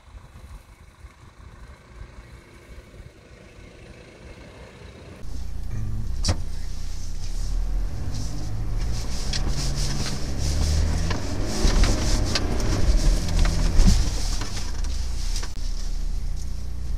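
A 4x4's engine running faintly in the distance, then, from about five seconds in, a loud engine and the clatter of a 4x4 driving over rough sandy ground, heard from a camera mounted on the vehicle. Repeated knocks and rattles from the body and suspension are mixed in.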